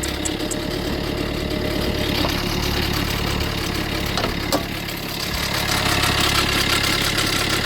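Fiat 500L diesel engine idling with a steady, fast rattle, which the mechanic takes for a stretched timing chain. The oil pressure warning leads him to suspect the oil pump chain may be about to snap.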